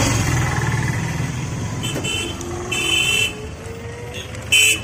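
Vehicle horns beeping three times in street traffic, short high toots about two seconds in, at three seconds and a loudest one near the end, over road noise from a moving battery e-rickshaw. A faint rising whine runs under the middle of it.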